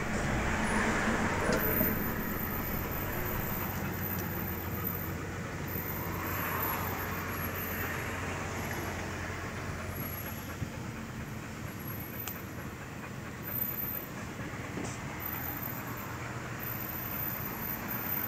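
Vehicle driving noise heard from inside a van's cabin: a steady low engine and road hum with tyre noise, swelling slightly at times.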